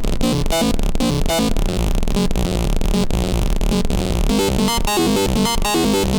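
Synth patch built in Serum 2 playing a randomly generated eight-step note sequence from the ML185 step sequencer. It is a fast run of short notes that jump up and down in pitch over a deep low end, distorted in a hard-techno style.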